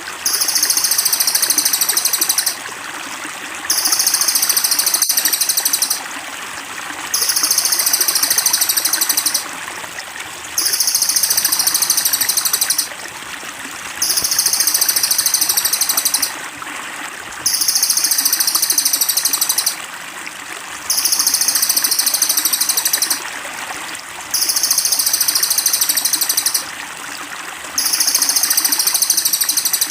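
A cililin songbird's high-pitched rapid song phrase, each about two and a half seconds long, repeats at an even pace about every three and a half seconds, over steadily trickling water. The phrases are identical in shape, as in a looped training ('masteran') recording.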